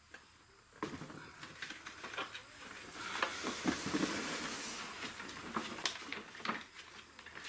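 A battery being dragged and shifted into place: scraping along the floor with scattered knocks and clunks, loudest about three to five seconds in.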